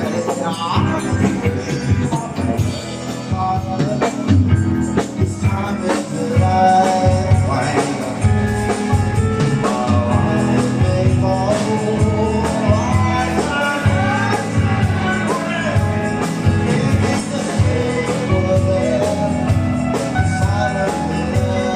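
Rock band playing a song with a singer, drums and a tambourine.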